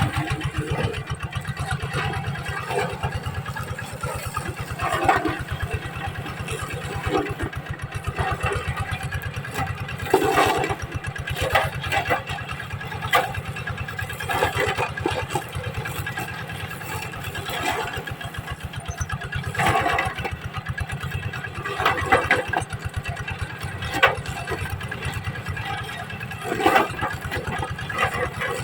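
Engine of a sugarcane stubble-shaving (kepras) machine running steadily, with short louder bursts every two to three seconds.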